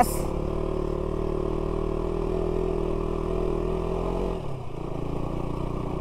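KTM Duke 200's single-cylinder engine running steadily as the motorcycle rides over a rough gravel track. The engine note drops about four and a half seconds in.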